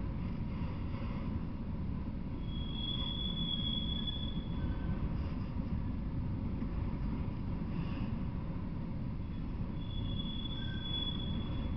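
Freight train of autorack cars rolling past steadily, a low rumble of wheels on rail. A high, thin wheel squeal is drawn out twice, for about two seconds each time, a few seconds in and again near the end.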